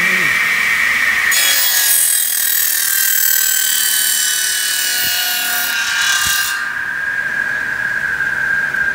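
Power saw cutting PVC pipe: the motor runs with a steady high whine, and the blade's cutting noise starts about a second in and stops about five seconds later while the motor keeps running, its whine slowly dropping in pitch.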